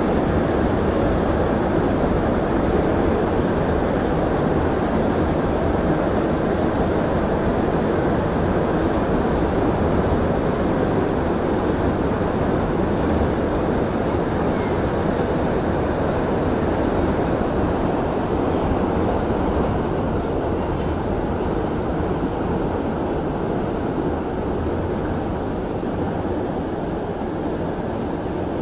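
Rubber-tyred Montreal Metro train running through a tunnel, heard from inside the car: a steady, loud rumbling noise that eases slightly near the end as the train reaches a station.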